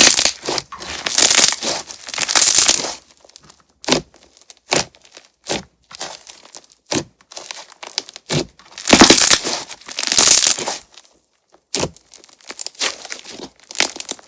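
Crunch-texture slime being squeezed and stretched by hand, crackling and popping loudly. There are long bursts of crackle in the first three seconds and again around nine to ten seconds in, with sharp single pops between them.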